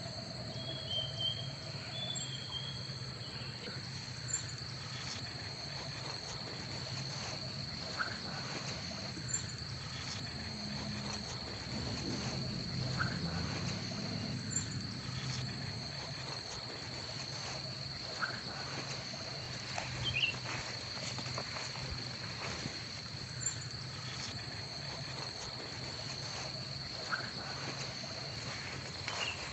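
Origami paper being handled and creased on a wooden table, with short faint rustles and taps every few seconds, over a steady high-pitched whine and a low hum.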